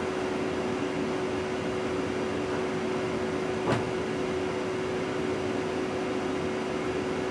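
DB class 425 electric multiple unit standing still, heard from the driver's cab: a steady hum of its onboard equipment with one constant tone, and a single sharp click about halfway through.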